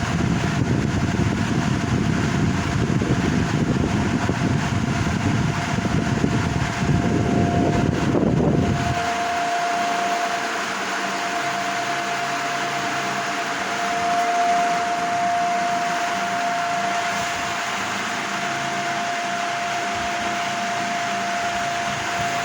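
Ventisol Fharo ceiling fan running. For about the first nine seconds a heavy low rumble covers it, then stops suddenly, leaving a steady airflow hiss with a clear steady motor hum.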